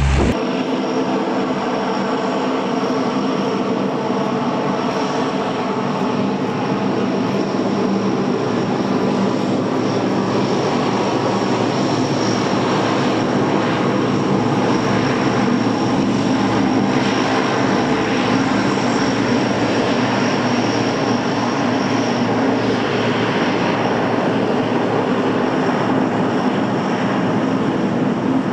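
NASA Super Guppy cargo plane's turboprop engines running as it taxis: a steady propeller drone with a high, even engine whine.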